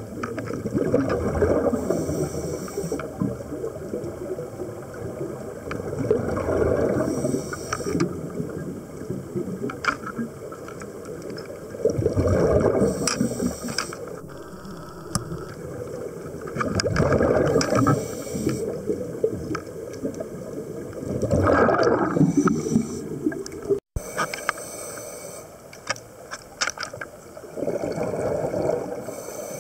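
Scuba regulator breathing heard underwater: a bubbling rush of exhaled air about every five seconds, six times in all, with quieter hiss and scattered sharp clicks between.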